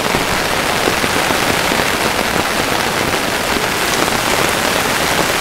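Steady rain, a dense patter of drops, falling on an umbrella held overhead and on the surrounding leaves.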